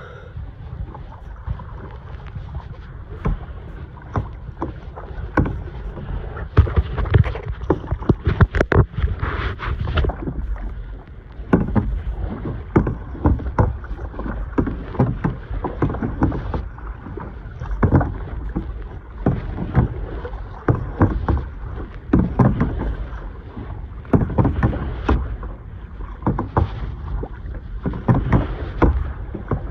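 Kayak paddle strokes dipping and splashing in seawater, a run of short splashes one or two a second, over a steady low rumble of wind on the microphone.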